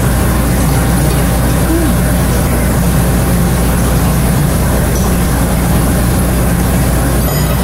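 A steady, low mechanical hum, like a motor or engine running continuously.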